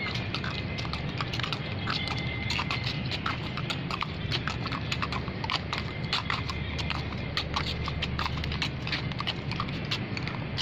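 Horse's hooves clip-clopping in a quick, uneven run of many sharp clicks a second, over a steady low hum.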